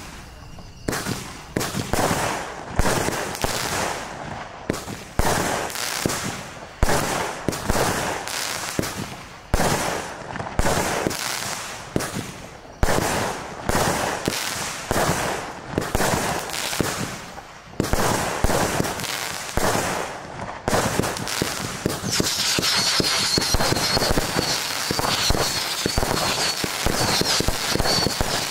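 A 48-shot consumer firework fan cake (Albert Feuerwerk "Extreme Terror") firing shot after shot, about two a second: the thump of each launch and the bang of the burst overhead. About three quarters of the way through, it goes into a dense, continuous salvo, with many shots fired at once for the finale.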